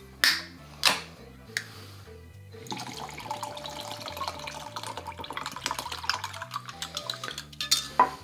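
Pineapple juice poured from a can into a glass measuring jug of coconut water: a steady splashing pour of about five seconds, starting a few seconds in, after a few sharp clicks.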